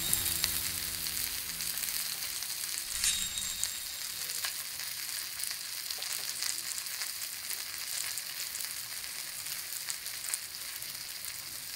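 Meat frying in a pan of hot oil: a steady sizzle with scattered crackling pops throughout.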